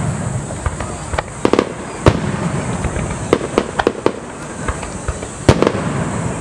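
Aerial fireworks shells bursting in an irregular string of sharp bangs and pops. The loudest bangs come about two seconds in and again about five and a half seconds in.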